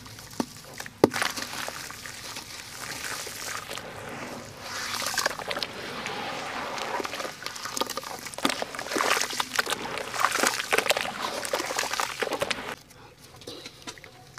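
Hands squeezing and crumbling soaked sand-cement lumps in a basin of water: wet sloshing and squelching with gritty crackles, and a sharp snap about a second in. The sound drops away a little before the end.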